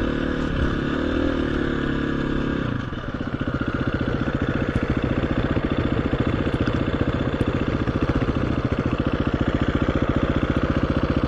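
KTM 350 EXC-F single-cylinder four-stroke dirt bike engine running on light throttle, then dropping to a steady, even idle about three seconds in as the bike comes to a stop.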